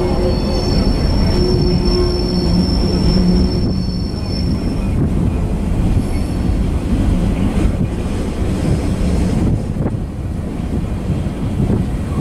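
Freight train's tank cars and boxcars rolling past: a loud, steady rumble of wheels on rail, with a high-pitched squeal from the wheels for the first four seconds or so and briefly again about six seconds in.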